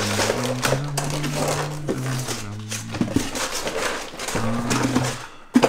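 Plastic tackle packaging rustling and crinkling as small bags of jig heads are pulled out of a box, with many small clicks and a low hum-like tone coming and going. A sharp knock near the end is the loudest moment.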